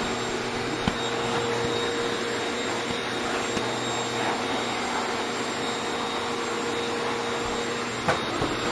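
Vacuum cleaner running with a steady hum and whine, its nozzle worked over a dog's coat; a few light knocks near the end.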